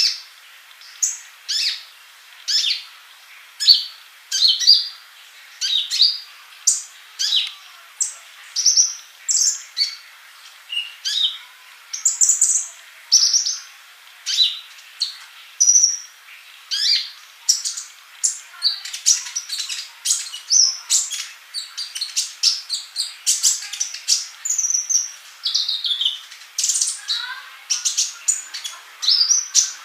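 A sunbird (the "colibri" of Indonesian bird keepers) singing: a busy run of short, high chirps and trills, one or two a second, coming thicker in the second half.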